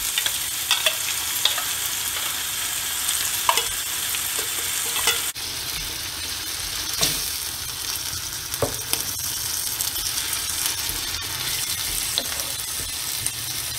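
Kimchi and canned tuna sizzling as they fry in a nonstick frying pan. A wooden spatula stirs and taps through the mix a few times.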